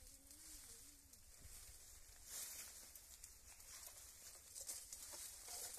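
Faint rustling and crackling of dry twigs and leaves in thick undergrowth, growing a little louder about two seconds in. A person's voice wavers briefly at the very start.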